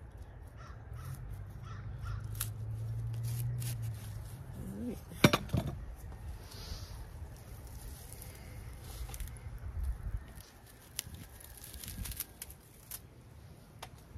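Crows cawing in the background, with a sharp knock about five seconds in.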